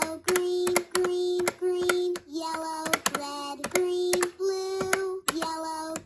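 Fisher-Price Laugh & Learn toy piano playing electronic notes, one for each press of its plastic keys. There are about ten short notes, roughly two a second, each starting with a click of the key.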